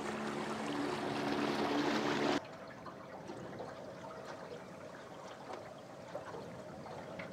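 Small motorboat's outboard motor running with a steady hum over rushing water, cut off abruptly about two and a half seconds in. Then quieter water lapping and trickling along a boat's hull, with a faint steady hum underneath.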